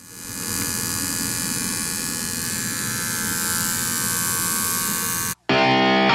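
Tattoo machine buzzing steadily. It cuts off about five seconds in, and after a brief gap distorted electric-guitar music starts.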